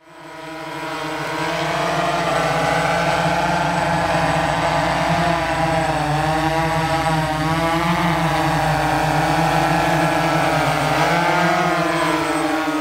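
RS8 multi-rotor crop-spraying drone in flight, its propellers giving a loud, continuous buzz whose pitch wavers up and down as it manoeuvres. The sound fades in over the first couple of seconds.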